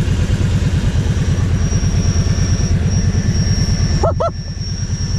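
Kawasaki KVF 750 Brute Force quad's V-twin engine idling steadily, with a thin high whine over it. Two short chirps sound about four seconds in.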